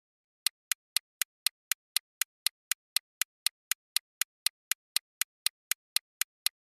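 Countdown-timer tick sound effect: sharp, evenly spaced clock-like ticks, about four a second, starting about half a second in and stopping near the end.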